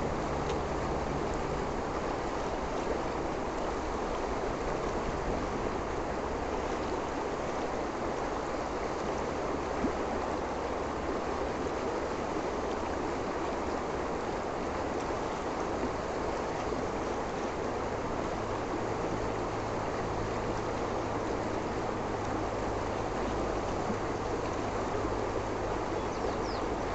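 A shallow river rushing over stones and riffles: a steady, even rush of flowing water.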